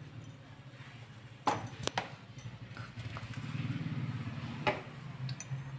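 A wooden spoon knocking a few times against the side of a mixing bowl while spice powder is worked into prawns, over a low steady hum.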